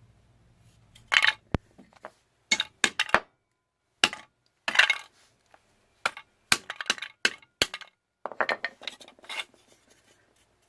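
Hard plastic and metal clinking and clattering in short irregular clusters, a dozen or so sharp clicks spread over several seconds, with no heavy low thud among them.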